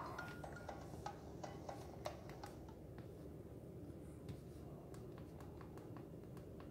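Faint scattered clicks and ticks from the tablet being handled and tapped, over a low steady hum. The clicks come quickly in the first couple of seconds and then thin out.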